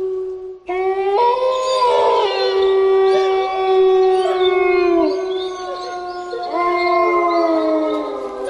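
A pack of wolves howling in chorus: several long, drawn-out howls overlap at different pitches. There is a brief break just before one second in, after which more voices join, and another howl rises in about two thirds of the way through.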